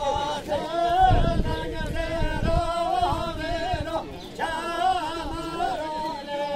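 A male voice singing a folk dance song for a govend line dance, in long, wavering held phrases with short breaks. A low rumble comes in about a second in and lasts a second or two.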